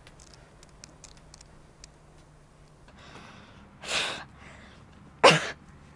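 A woman's sharp, distressed breaths: one about four seconds in and a louder gasp about a second later. Faint scattered ticks come in the first two seconds.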